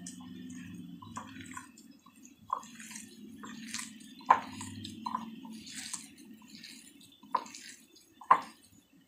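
Boiled potatoes being mashed by hand in a glass bowl: soft, wet squishing with a few sharp knocks against the glass. A low hum runs underneath until a little past the middle.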